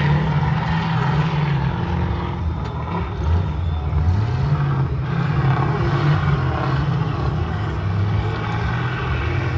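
Off-road army truck's engine running hard, its pitch rising and falling several times as it is revved.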